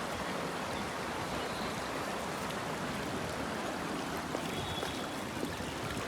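Water of a rocky waterfall cascade rushing steadily, an even hiss-like noise without breaks.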